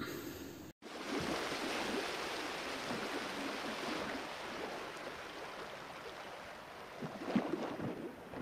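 Steady hiss of background noise, with a few faint knocks near the end.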